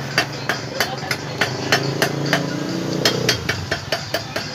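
Sharp, repeated taps, about three a second, of a hand tool striking a concrete hollow block. Behind them a low engine hum rises in pitch and then drops away about three seconds in.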